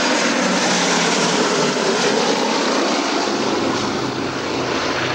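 Four Wright Cyclone radial engines of a B-17 Flying Fortress running in a low pass overhead, a loud, steady propeller-aircraft drone that begins to fade near the end as the bomber draws away.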